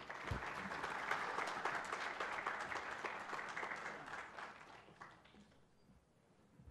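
Audience applauding: many hands clapping, thinning out and dying away about five seconds in.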